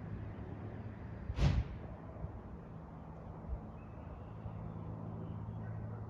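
Steady low engine drone, with a brief loud rush about a second and a half in.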